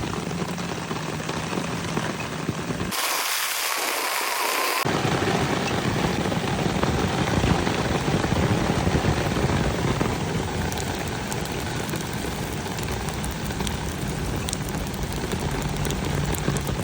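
Puri shells deep-frying in hot oil: a dense, steady sizzle with many small crackling pops. About three seconds in, the sound turns thinner and brighter for roughly two seconds.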